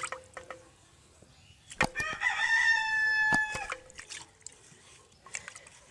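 A rooster crowing once: one long call of nearly two seconds starting about two seconds in, its pitch falling slightly as it holds. A sharp knock comes just before the crow.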